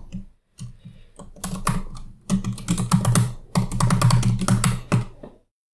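Typing on a computer keyboard: quick runs of key clicks in two main bursts, ending about five seconds in.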